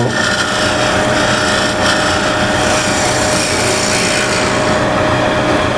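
Wood lathe running while a scraper with a fresh burr straight from the grinder cuts the spinning wood. A steady rasping hiss sits over the lathe's constant hum.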